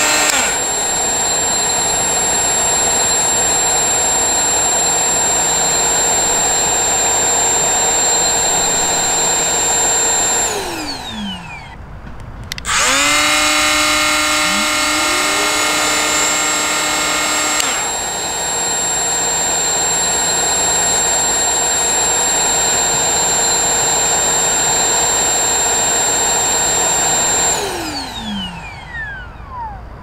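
Bosch 12V cordless angle grinder running, with a Bosch GAS18V-12MC cordless dust extractor starting up automatically a couple of seconds after the grinder, its motor whine rising in pitch as it spins up. The extractor keeps running on after the grinder stops and then winds down, falling in pitch. This happens twice: once near the start and again from about 13 s in, with the extractor's auto-stop run-on lasting about ten seconds.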